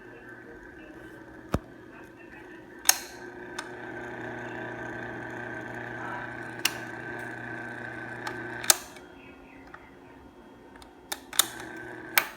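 16-inch Union electric stand fan running with a steady buzzing hum, the buzz its owner hears as a fault. It gets louder about four seconds in and drops back after a click near nine seconds. Sharp clicks come several times throughout.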